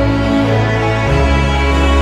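Background music: slow, held chords that change about once a second.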